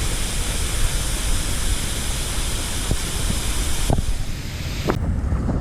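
Waterfall: a steady, loud rushing of falling water. The hiss drops sharply about four seconds in and again about a second later.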